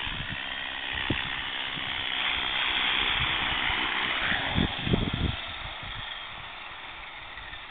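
Align T-Rex 450 Pro electric RC helicopter's rotor and motor whine as it flies in close and lands. After a few low thumps about five seconds in, the whine fades as the rotor spools down.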